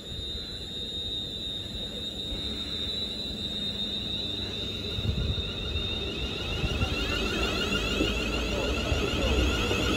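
Class 350 Desiro electric multiple unit pulling out. A low rumble grows steadily louder under a steady high whine and shifting electronic tones from its traction equipment.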